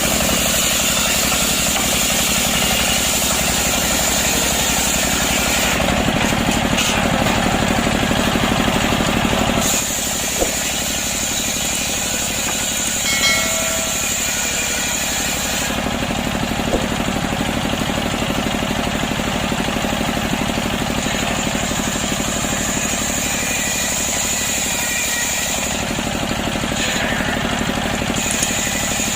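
Chainsaw running continuously while ripping a freshly felled, wet breadfruit log lengthwise, its note shifting several times during the cut.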